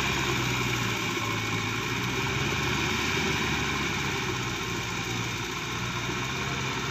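Kubota farm tractor's diesel engine running steadily under load as it tills a flooded rice paddy.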